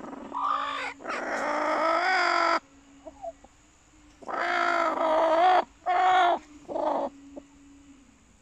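Laying hens calling with loud, drawn-out, wavering squawks: five calls in two groups, the longest about a second and a half, over a faint steady hum.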